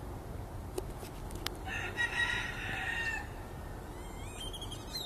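A rooster crows once, a single call of about a second and a half, over a steady background hiss. Near the end come a few quick, rising high-pitched chirps.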